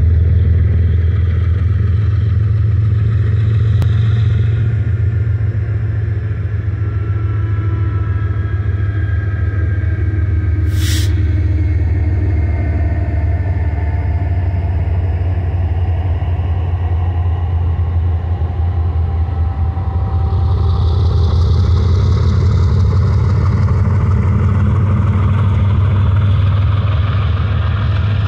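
Diesel-electric freight locomotives (a BNSF ES44DC leading and a Dash 9-44CW trailing) running with a steady, deep engine drone, with faint high squealing from the train and a brief sharp hiss about eleven seconds in.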